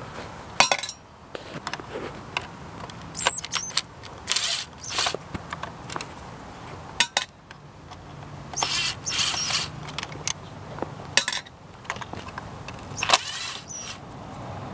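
Hand work on engine parts: irregular clicks and knocks from tools and plastic components being handled, with short bursts of scraping in between.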